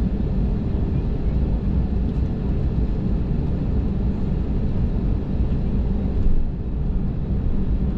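Steady low rumble and hum of an airliner's cabin while the plane rolls on the ground: jet engines at low power and wheels on the pavement, heard from inside the cabin.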